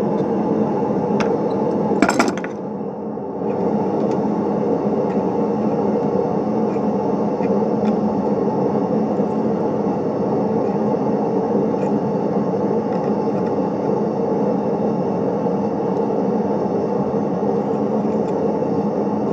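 A steady rushing noise, with one sharp metal clank about two seconds in, at a bench vise during blacksmith work.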